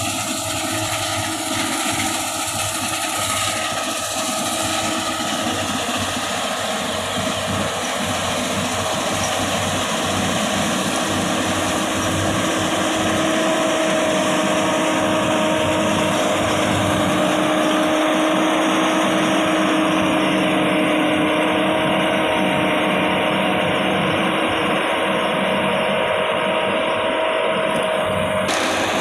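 New Holland combine harvester running steadily as it cuts and threshes ripe wheat: continuous engine and machinery noise with a steady whine, growing a little louder about halfway through.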